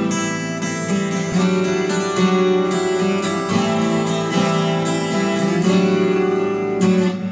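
Twelve-string acoustic guitar playing chords in a steady strummed rhythm, the instrumental intro before the vocal comes in.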